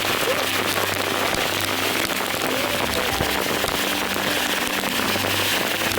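Rain falling steadily, a dense patter of many small drops ticking close to the microphone.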